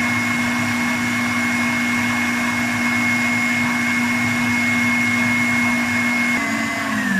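Electric stand mixer with a wire whisk running steadily at high speed, whipping egg white, persimmon purée and hot sugar syrup into marshmallow mass. Near the end the mixer is switched off and its motor hum slides down in pitch as it winds down.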